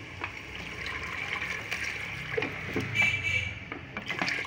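Water being poured into a pressure cooker of fried masala and red kidney beans, splashing into the pot, with a few light clicks.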